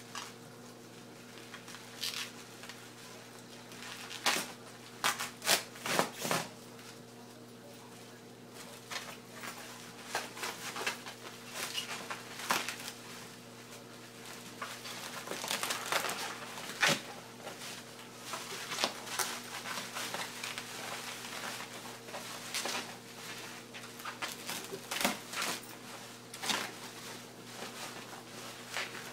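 Packing material being handled during an unboxing: irregular crinkling and rustling with scattered sharper crackles, over a faint steady low hum.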